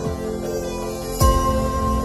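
Soft electronic background music with long held chords. About a second in, a deep bass hit lands with a bright crash on top of it.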